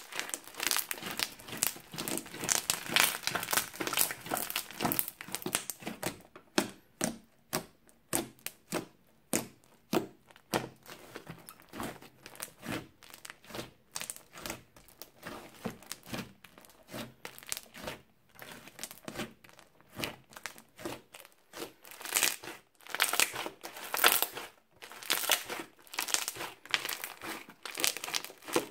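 Crunchy slime being kneaded, pressed and squeezed by hand, giving dense crackling and popping. The crackle is thick for the first few seconds and again from about 22 seconds in, with sparser single pops in between.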